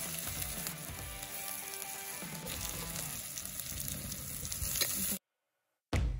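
Chopped onions sizzling as they fry in hot sesame oil, a dense steady hiss that cuts off abruptly about five seconds in, followed by a short thud near the end.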